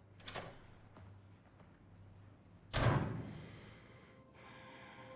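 A single heavy thud about three seconds in, after a faint click shortly after the start. Soft sustained music tones come in near the end.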